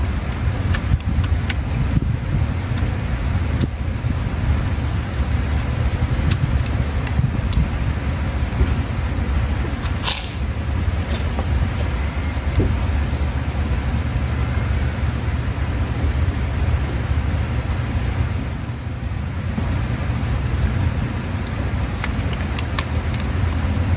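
Steady low outdoor rumble, with scattered small clicks and crunches of hand-eating and one sharper crack about ten seconds in. Near the end, a plastic soda bottle's cap is twisted open with a few quick clicks.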